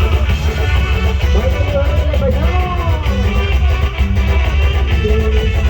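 Dance music from a band: a heavy bass and drum beat under guitar and a lead melody that glides up and down.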